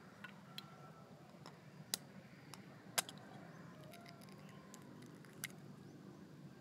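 A small sickle blade tapping against a chicken eggshell, several separate sharp taps with the loudest about halfway through, as the egg is cracked open.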